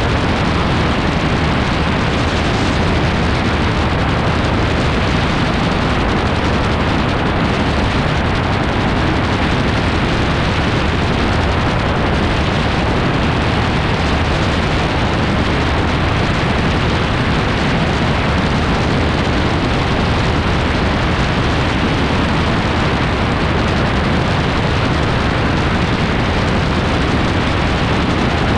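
AutoGyro MTO Free gyroplane in flight: a loud, steady rush of wind buffeting the microphone over the engine and rotor noise.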